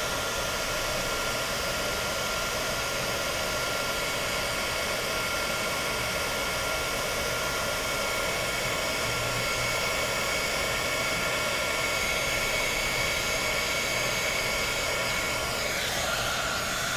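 Handheld heat gun blowing a steady rush of hot air with a faint high whine, shrinking heat-shrink tubing over a soldered resistor and wire joint. It is switched off abruptly at the very end.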